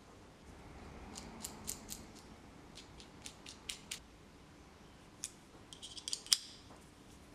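A series of light, sharp clicks, like small hard objects being handled: scattered at first, then a quick cluster near the end, where the loudest click falls.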